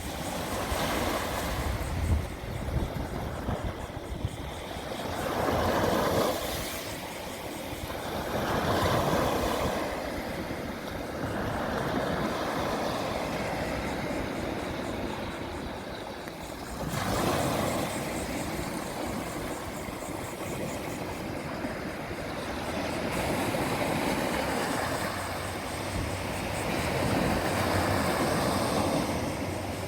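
Ocean surf: waves breaking and washing in, swelling and fading every few seconds over a steady low rumble.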